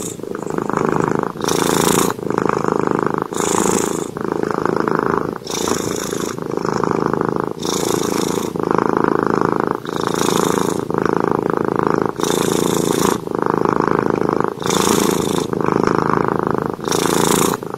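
Domestic cat purring while being stroked as it dozes, in steady waves that swell and dip with each breath about once a second.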